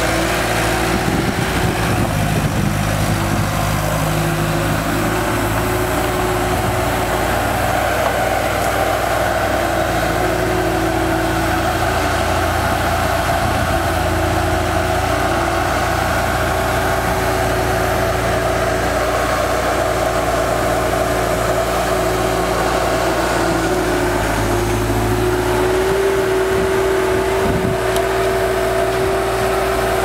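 Bobcat 873 skid steer loader's turbocharged diesel engine running at a steady speed as the machine drives and manoeuvres on gravel, with a steady whine over the engine note that grows stronger near the end.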